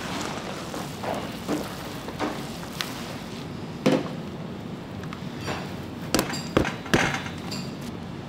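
Kitchen work: irregular knocks and clacks of utensils and dishes over steady background noise, with a sharp knock about four seconds in and a quick run of three near the end.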